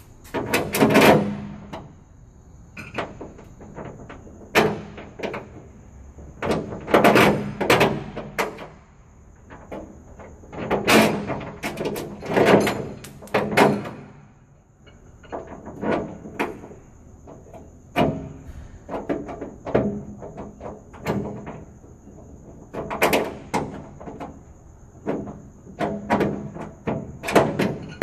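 Irregular bursts of knocking and clattering against the van's sheet-metal door, each lasting a second or two, with short quieter gaps between them.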